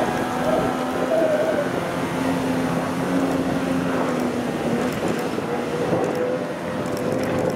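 Outboard motor of a D-class inshore lifeboat running at speed: a steady engine drone with the rush of the boat's wash.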